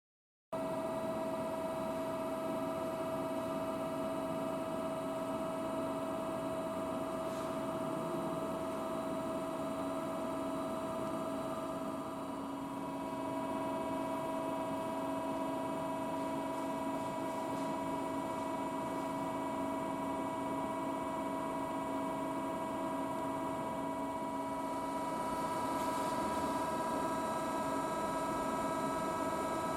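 Amada RGM2 5020AT press brake standing powered up, its motor and hydraulic pump running with a steady hum and whine of several fixed tones, a little louder from about 25 seconds in.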